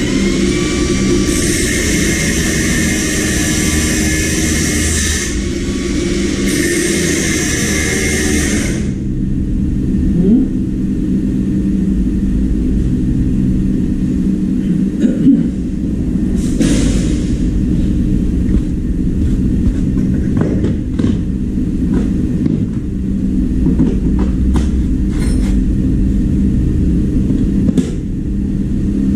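A steady low mechanical rumble, with a hiss over it for roughly the first nine seconds and a few scattered clicks later.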